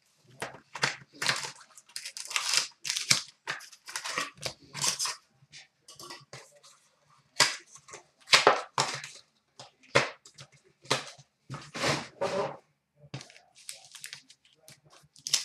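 Sealed box of trading-card packs being unwrapped and opened, and the wrapped packs handled and set down: a rapid, irregular run of crinkling rustles and light taps.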